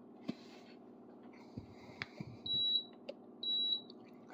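Senville mini-split indoor head beeping twice, two short high beeps about a second apart, as it takes a command sent from the phone app over Wi-Fi.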